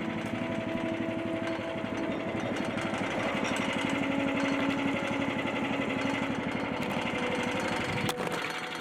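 An engine running steadily with a rapid pulse, with a sharp click about 8 seconds in after which the deeper part of the sound drops away.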